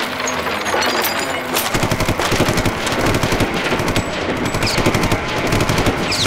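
Rapid automatic gunfire, a machine-gun sound effect firing in a continuous stream of shots that grows heavier about two seconds in.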